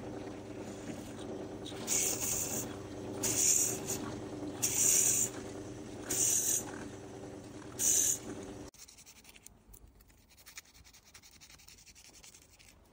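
Drill press running steadily while its bit is fed into a block of ebony in five short pecks, each a hiss of cutting, about one and a half seconds apart. The sound cuts off suddenly near the two-thirds mark, leaving faint scratching and rubbing of hand work at the bench.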